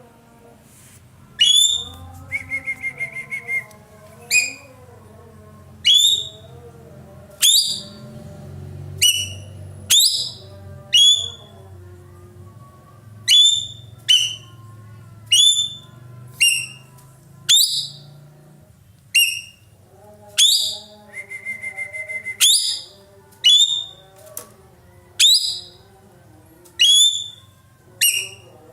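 Ekek keling songbird calling loudly: sharp whistled notes that fall in pitch, repeated about once a second, with a rapid trill on one steady pitch twice.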